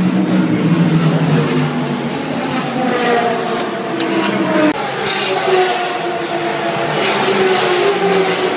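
Race car engines running, their pitch rising and falling, with a sudden drop in pitch nearly five seconds in. Two sharp clicks come about three and a half and four seconds in.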